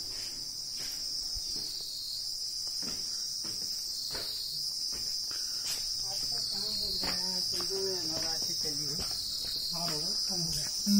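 A steady, high-pitched chorus of insects, swelling and easing slowly every few seconds.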